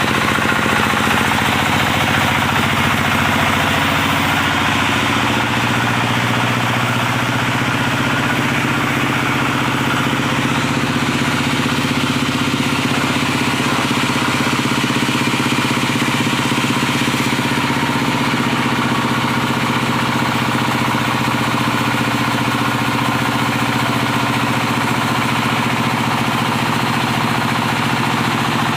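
Diesel engine of a wood sawing rig running steadily at a constant speed.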